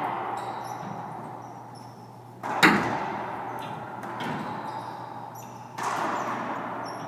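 Racquetball being hit during a doubles rally in an enclosed court: three sharp cracks of ball on racquet and wall, about a second and a half apart, the first the loudest, each ringing on in a long echo. Short high sneaker squeaks on the hardwood floor come in between.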